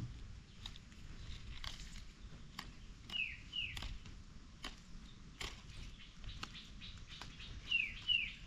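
A bird calls twice, about four and a half seconds apart, each call a pair of quick falling chirps, over scattered sharp crackles and snaps.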